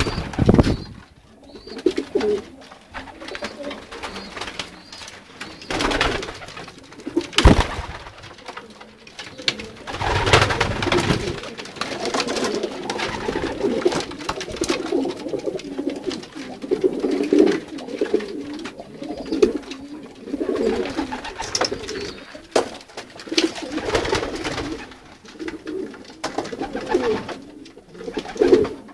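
Racing pigeons cooing: repeated low coos throughout, with a few sharp knocks, the loudest about seven and a half seconds in.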